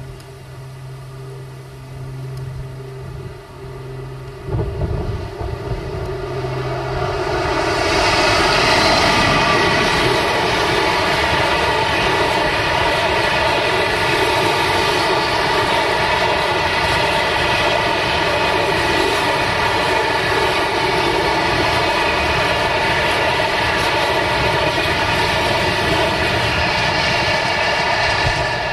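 Class 60 diesel-electric freight locomotive (eight-cylinder Mirrlees engine) approaching and passing with its engine droning, then a long train of tank wagons rolling past on steel wheels. The sound swells sharply about eight seconds in and stays loud and steady.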